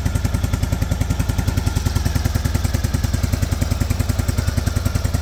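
1955 Harley-Davidson FL Panhead V-twin engine idling with an even, rapid beat, back running after about 20 years sitting.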